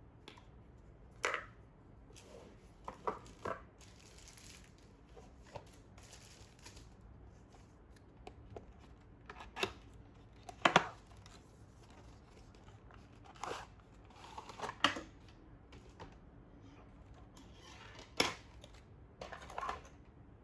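Packaging being handled during an iPad unboxing: scattered sharp taps and clicks, the loudest a quick double click about eleven seconds in, with stretches of soft rustling and sliding of paper and plastic in between.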